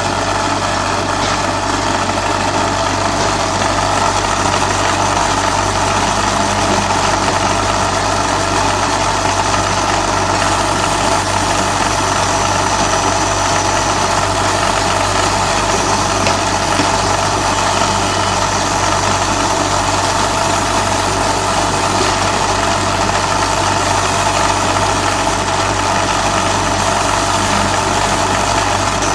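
Steady hum and fan noise of a CO2 laser marking machine and its fume-extraction blower running while the laser engraves pine wood, with a constant low electrical hum underneath.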